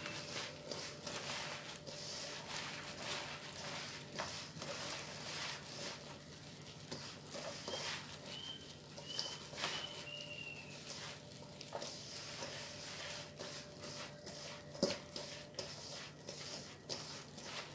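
Gloved hands tossing and squeezing chopped garlic chives in a stainless steel bowl: soft, irregular rustling and squishing, with a sharper knock about fifteen seconds in, over a low steady hum.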